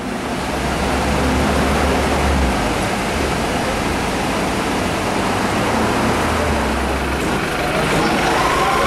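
Aston Martin One-77's 7.3-litre V12 idling steadily, with a deep low hum under a broad rush of engine and street noise.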